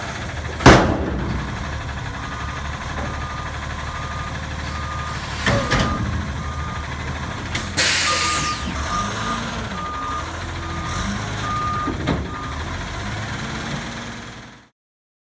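Front-loader garbage truck running with a loud bang about half a second in as the bin is dumped, then its reverse alarm beeping about twice a second as it backs up, with an air-brake hiss about eight seconds in. The sound cuts off abruptly near the end.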